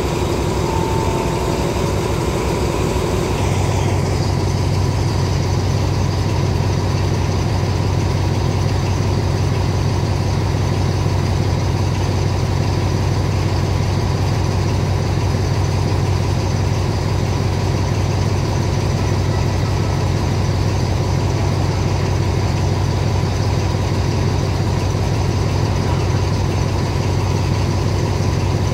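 Diesel-electric locomotive (SRT no. 4204, an Alsthom AD24C) idling with a steady low engine hum. The engine note changes and settles a few seconds in.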